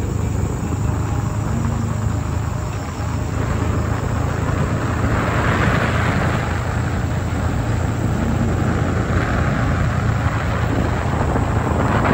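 A vehicle driving on an asphalt road: a steady low rumble of engine and tyres with a rushing wind noise, which grows louder from about five seconds in.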